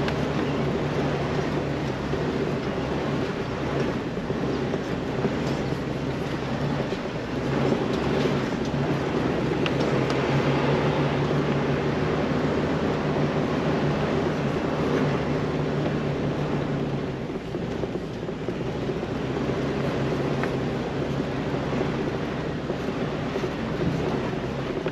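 Jeep Wrangler TJ's engine running steadily at low revs as it crawls down a rough off-road trail, with a few faint knocks and rattles over the rocks.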